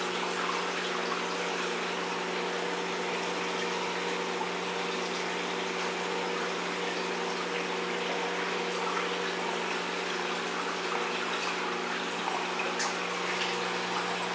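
Aquarium filter pump running: a steady rush of moving water over a constant hum from the pump.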